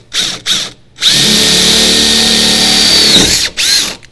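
Cordless drill boring a hole through a van door's sheet metal. Two short trigger bursts come first, then the drill runs steadily with a high whine for about two seconds and spins down, followed by one more short burst near the end.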